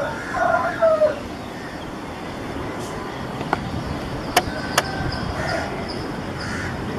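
Steady rumble of a jet airliner's engines on final approach, with two sharp clicks about four and a half seconds in.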